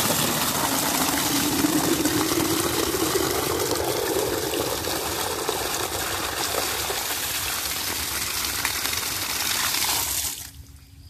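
Water from a 1.5-inch submersible well pump gushing out of a PVC pipe and splashing into a plastic bucket, with a tone that rises over the first five seconds as the bucket fills. The gush cuts off suddenly about ten and a half seconds in.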